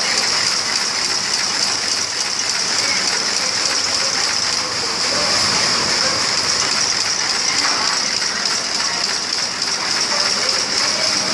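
ST-110 brush tufting machine running: a fast, steady mechanical clatter of its cams and linkages, with a bright high-pitched edge and an even level.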